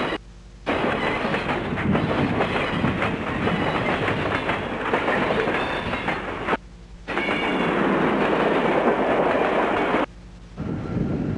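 Southern Pacific freight train rolling by, its wheels clattering over the rail joints. The sound drops out suddenly three times for about half a second.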